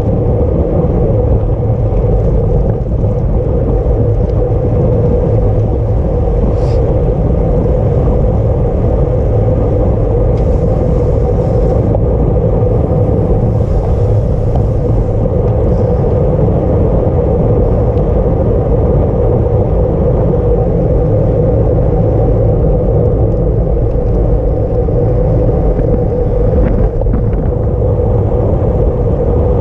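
Steady loud rumble of wind rushing over the microphone of a bike-mounted camera during a road race, with a faint hum underneath.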